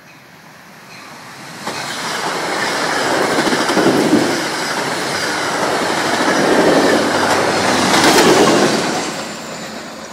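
MTA passenger train of silver single-level coaches passing close by: a rushing rumble with wheels clattering over the rail joints. It builds over the first two seconds, stays loud with two swells, and fades near the end.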